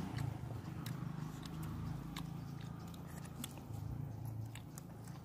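A person chewing food close to the microphone, eating tandoori roti and chicken, with scattered small mouth clicks over a low steady hum.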